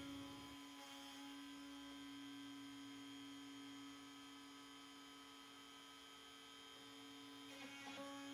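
Faint, steady hum of a compact router spinning on a Maslow 4 CNC sled during an engraving cut: one constant pitch with overtones above it.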